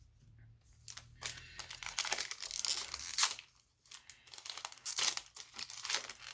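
A trading-card booster pack wrapper being torn open and crinkled. The sound comes in two spells of rustling, one starting about a second in and one near the end.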